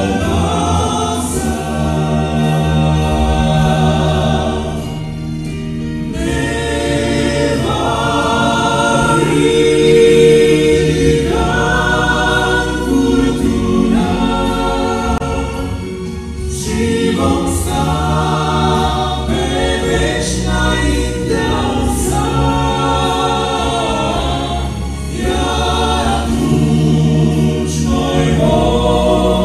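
Male vocal quartet singing a Romanian gospel song together through microphones, in phrases with short breaths between them.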